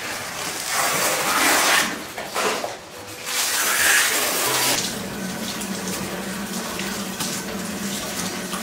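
Water running from a tap and splashing into a sink or basin, surging louder twice in the first half, then running steadily.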